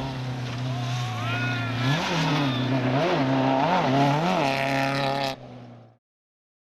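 Race car engine running at a steady idle, blipped four times in quick succession, each a short rise and fall in revs. The sound cuts off abruptly near the end.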